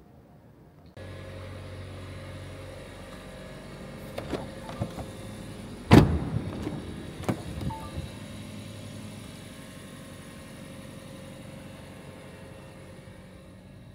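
Inside a 2024 Renault Grand Koleos hybrid, a steady mechanical hum comes on suddenly about a second in, as if the car had just been switched on. Several sharp clicks and one loud thump about six seconds in follow over the next few seconds, like cabin handling noises.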